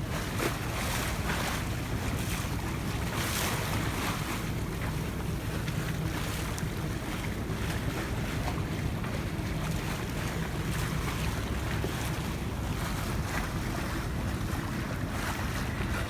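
Steady wind buffeting the microphone over water washing and splashing past the hull of a yacht under way.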